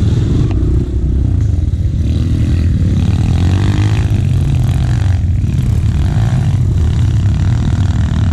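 Enduro motorcycle engine running under way while being ridden, its revs rising and falling twice.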